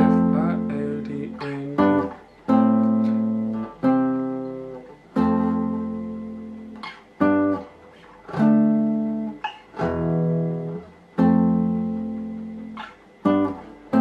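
Nylon-string classical guitar strumming chords, one every second or two, each chord ringing out and fading before the next.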